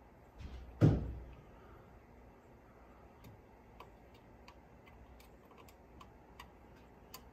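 Handling noise at a workbench: a single dull thump about a second in, then light, irregular clicks and ticks.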